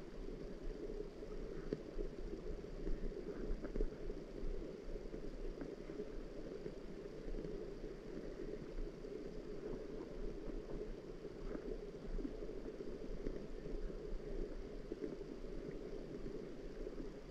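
Steady, muffled water ambience: a low, even rush with a fine crackle in it and no distinct events.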